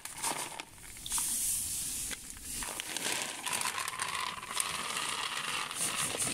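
Black burst-charge-coated rice puffs rattling as they are shaken in a plastic tub and poured out onto a tray: a dense, dry hiss of many small pellets knocking together, full of tiny clicks.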